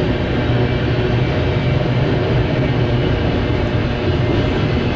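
Double-stack container freight train rolling past, its cars giving a steady, unbroken rumble of wheels on rail.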